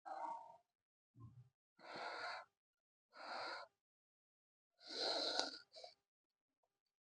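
Maggi instant noodles being slurped into the mouth in about five short, breathy pulls, the longest about two-thirds of the way through.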